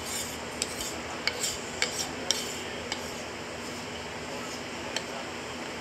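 Wooden chopsticks clicking against a bowl as food is scraped out of it: several sharp clicks in the first three seconds and one more about five seconds in.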